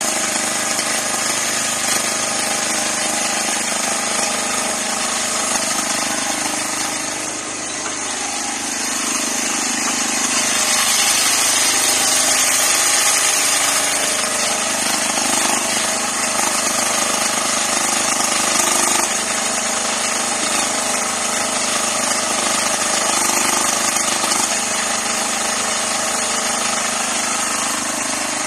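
Engine of a 0.8-ton mini excavator running steadily, dipping briefly and then growing louder for a few seconds from about ten seconds in.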